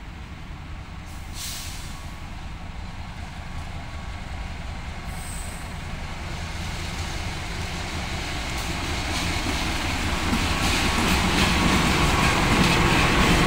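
CC206 diesel-electric locomotive hauling a container freight train, approaching and passing: a steady low engine rumble grows steadily louder. From about two-thirds of the way through, the rapid clatter of wheels on the rails joins in as the locomotive and container wagons go by.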